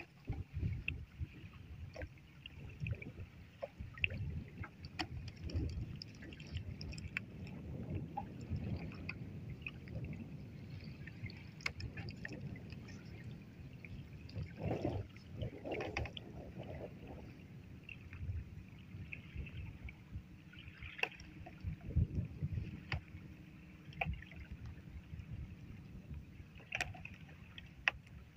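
Wind buffeting the microphone and water slapping against a wooden boat, with scattered light knocks and rustles as a fine mesh gill net is hauled in over the side by hand. A louder bout of splashing and rustling comes about halfway through.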